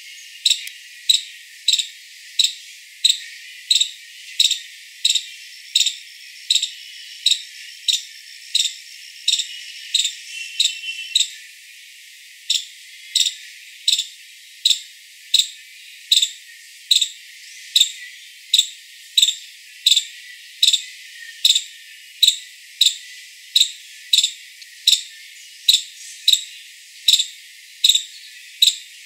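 Five-striped (northern) palm squirrel calling: a long, evenly spaced series of sharp, high chirps, about two a second.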